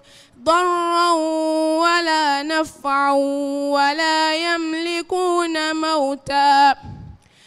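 A young woman's voice reciting the Quran in melodic tajweed style through a microphone, drawing out long vowels into sustained, ornamented notes that waver and glide. Brief pauses for breath come just after the start and near the end.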